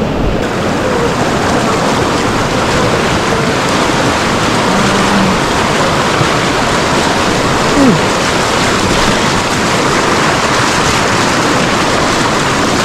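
Rushing water of a mountain stream or river, a loud, steady rush.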